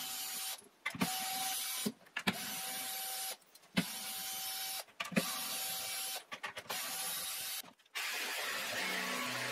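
A cordless drill/driver runs in six short bursts of about a second each, stopping and starting between them, as it works the screws of a metal drawer runner. About 8 s in, a different steady machine sound takes over.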